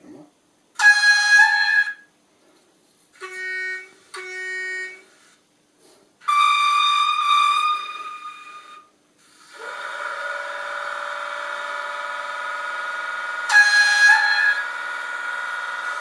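Horn signals from the sound decoder of a Fleischmann N-gauge ETA 515 battery railcar model. A blast about a second in is followed by two short, lower toots and then a longer blast. From about ten seconds in a long steady tone holds, with one more blast on top of it near the end.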